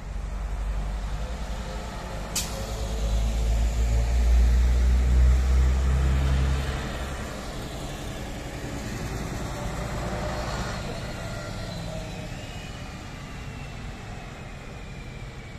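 Ikarus city bus driving past with a loud diesel rumble that builds, peaks and fades out about seven seconds in, with one short sharp hiss of air about two seconds in. Lighter passing road traffic follows.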